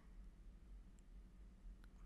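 Near silence: faint room tone with two tiny clicks.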